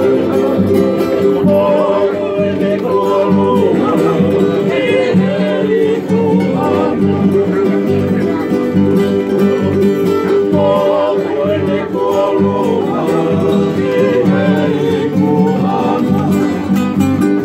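Several men singing together to a strummed ukulele and two strummed acoustic guitars: a Tongan kava-club song.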